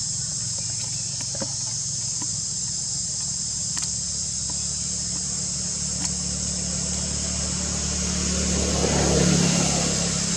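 Steady high-pitched insect chorus over a low engine hum, with a vehicle passing that grows to its loudest about nine seconds in and then fades.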